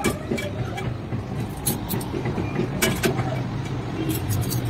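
Metal utensils clinking now and then as they are handled and set in place, a few sharp clicks, over a steady low hum.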